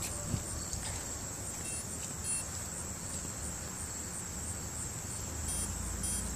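Insects trilling steadily, a high even buzz with a faint regular pulse. A low rumble rises near the end.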